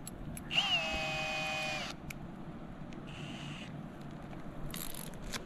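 Cordless drill run with no load, its motor whining for about a second at a steady pitch. A shorter, fainter whir follows about a second and a half later, then a brief rattle near the end.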